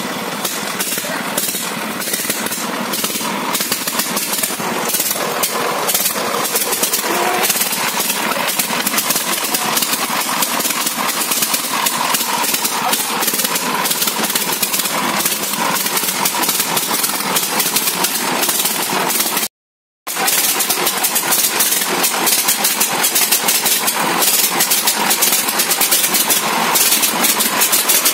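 Single-cylinder diesel power-tiller engine of a homemade loader running, with a rapid, even knocking beat. The sound cuts out for about half a second near twenty seconds in, then the same running carries on.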